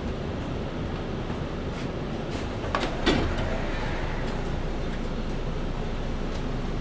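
A 2020 MAN Lion's City Ü (A20) city bus, heard from on board, running with a steady drone. One short clatter comes about three seconds in.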